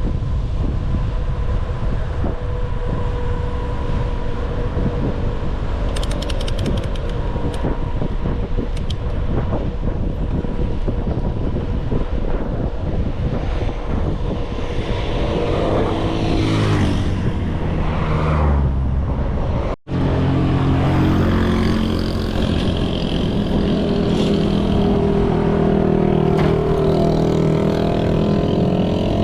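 Wind buffeting the microphone during a fast ride. In the second half, a motor vehicle's engine comes in, rising and falling in pitch, then running steadily after a brief break in the sound.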